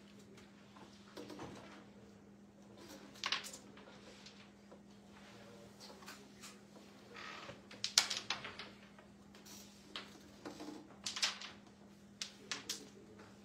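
Sharp clacks of a carrom striker hitting wooden carrom men and the board's frame: a handful of separate shots and clicks, the loudest about eight seconds in and a quick cluster near the end, over a steady low hum.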